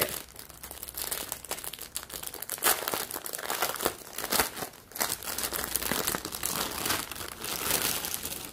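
Packaging crinkling and crackling as it is pulled and torn open by hand, with irregular sharp crackles throughout.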